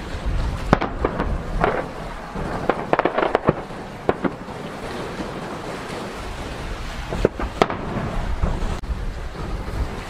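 Aerial firework shells bursting: sharp bangs about a second in, a quick run of reports around three seconds, and two more near the end, over a continuous low rumble.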